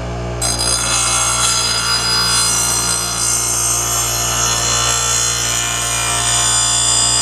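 Electric grinder motor humming steadily, then about half a second in a steel rotary mower blade is pressed against the spinning grinding wheel, and a loud, continuous grinding sharpens its worn edge.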